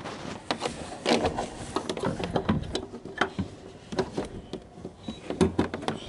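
Irregular knocks, clicks and rustling from hands handling a humidifier's power cord and plug, fumbling it into place behind furniture.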